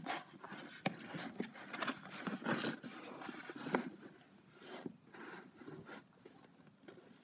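Handling noise as the recording camera is shifted and set in place on a desk: irregular scraping and rustling against paper and the desktop, with a few light knocks. The noise grows fainter near the end.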